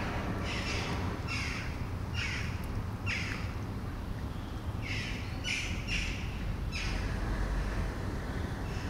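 A bird giving a series of about eight short, harsh calls, each dropping slightly in pitch, over a steady low rumble of distant traffic.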